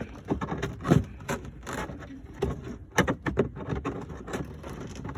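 Irregular clicks, knocks and scrapes of hands handling and seating a fuel filler door lock actuator in the car's body, with a sharper knock about a second in and a quick cluster of clicks around three seconds in.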